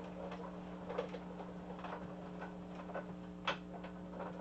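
Paper embossing machine pressing vellum through its rollers in an embossing folder: faint scattered ticks and clicks over a steady low hum, with one sharper click about three and a half seconds in.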